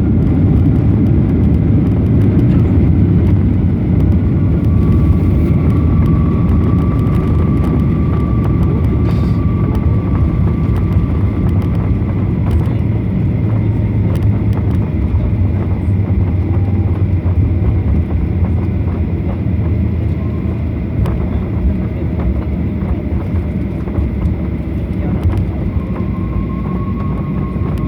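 Boeing 737-800 cabin noise during landing: a loud, steady low rumble of the jet engines and the aircraft moving on the runway, with a faint engine whine over it. It eases slightly near the end.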